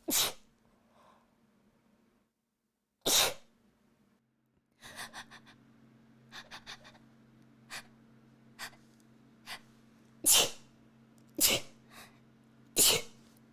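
A person sneezing five times in a fit, each one a sudden loud burst, the last three coming quickly together, with quieter short sounds between them.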